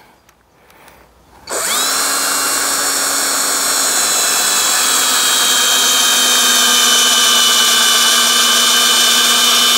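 An electric drill starts about a second and a half in, spins up quickly and then runs steadily at speed, its pitch sagging slightly as it goes.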